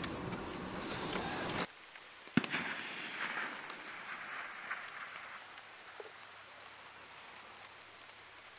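Distant gunfire from an army firing range: a single sharp shot about two seconds in, echoing for a couple of seconds, and a much fainter pop a few seconds later. Before it, a steady rushing noise cuts off abruptly.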